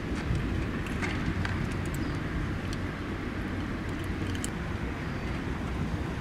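Steady low outdoor rumble, like wind or distant traffic, with scattered faint crisp clicks of cats crunching dry kibble.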